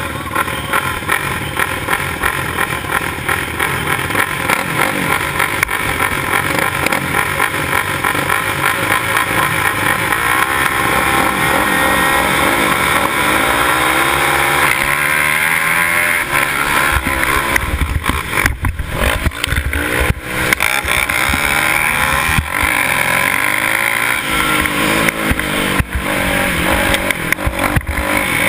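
Dirt bike engine racing, heard close up from a camera mounted on the bike. It runs hard throughout, and from about halfway on its pitch climbs and drops again and again as the rider opens and closes the throttle.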